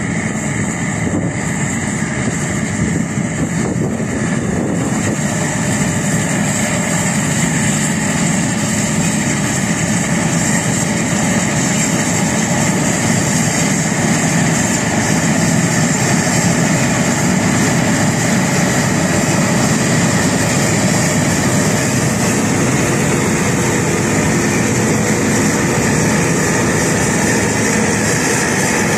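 Sampo Rosenlew 2045 Classic combine harvester running under load while harvesting oats: engine, threshing drum and header working together as a steady drone with a high whine. It grows a little louder as the combine comes closer.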